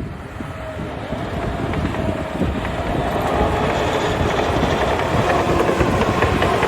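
CAT D5G XL crawler bulldozer running under power, its diesel engine and steel tracks clattering, growing louder from about a second in as the machine comes closer.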